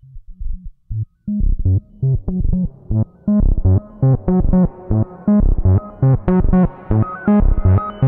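Modular synthesizer sequence of triangle-wave notes run through two Moog-style MachineRoom Dual 204D filters in series, with reverb. It plays a quick, repeating run of bass notes that starts dull and grows steadily brighter as the filter cutoff is turned up.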